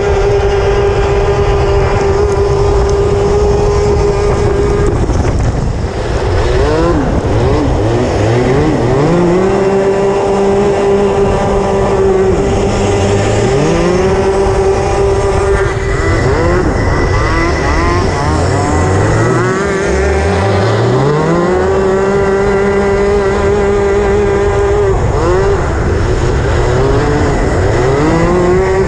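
Racing kart engine at full throttle, held at a steady high pitch, then dropping off and climbing back up several times as the driver lifts for the corners of an ice track. Other karts' engines can be heard close by.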